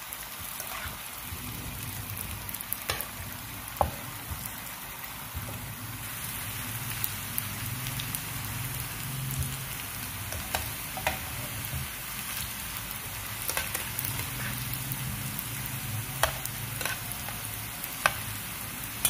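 Flour-coated potato fries deep-frying in hot oil: a steady sizzle with occasional sharp pops.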